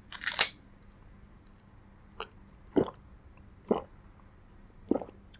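A person gulping water from a glass, close to the microphone: a sharp sip at the start, then four swallows about a second apart.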